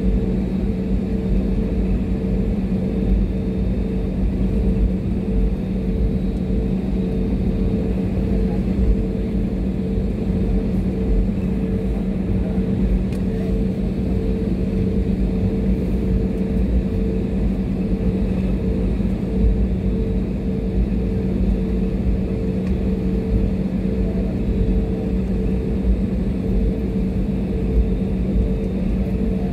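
Cabin noise inside an Airbus A320-family airliner while it taxis: a steady rumble and drone from the jet engines at low power, with a low hum and a higher hum held steady throughout.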